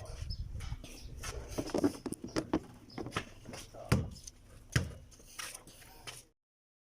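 Irregular clicks, knocks and scrapes of hand tools and small metal parts being handled during work on a car's idle air control valve. The sound cuts off abruptly near the end.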